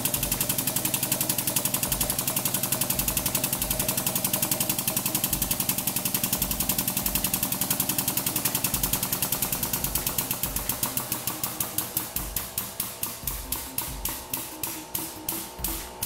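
Hydraulic press running under load as the ram crushes a block of puffed soap. It makes a rapid, steady pulsing over a hum, and the pulses slow from about ten seconds in until they are roughly two a second near the end.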